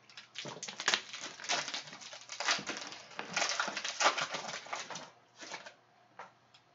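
Foil wrapper of a Panini Mosaic trading-card pack crinkling and tearing as it is opened by hand: a dense run of crackles for about five seconds, then a few scattered soft rustles.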